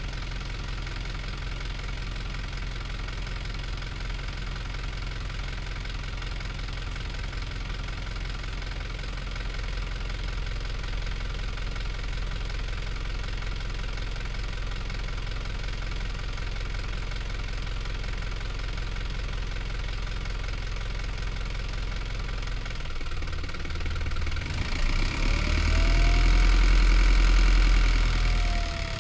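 Hino Liesse bus's J05D four-cylinder diesel idling steadily, then about three-quarters of the way through revving up as the bus pulls away. A whine rises and then falls in pitch, and the engine eases off just before the end.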